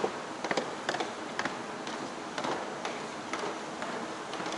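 Footsteps on a hard floor, sharp clicks at a walking pace of about two a second, over a steady background hum.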